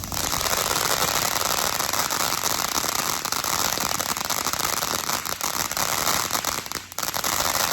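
Consumer firework going off with a dense, continuous hiss and crackle. It dips briefly about seven seconds in, then picks up again.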